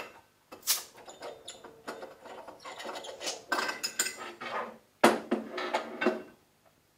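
Handling of a portable oxygen cylinder and its regulator: irregular metal clinks, knocks and rattles with scraping and rustling, with a louder clatter about five seconds in.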